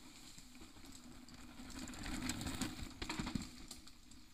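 Faint clicking and rattling of a mountain bike on a dirt trail, with the clicks coming thickest from about two seconds in.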